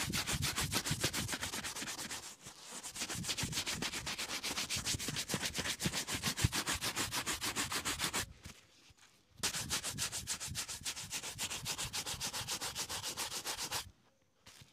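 Bristle shoe brush buffing a black leather boot in fast back-and-forth strokes, about five a second. The brushing breaks off briefly about two seconds in, pauses for about a second past the middle, and stops shortly before the end.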